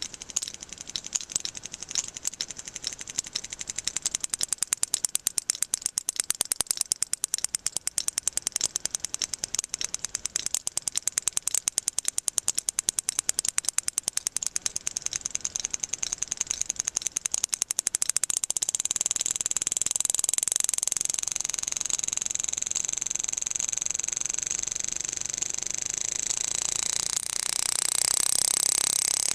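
Sperm whale echolocation clicks recorded underwater: a train of sharp clicks that speeds up and, about two-thirds of the way in, runs together into a continuous high buzz. The whale is using the clicks to find fish hooked on a fishing line.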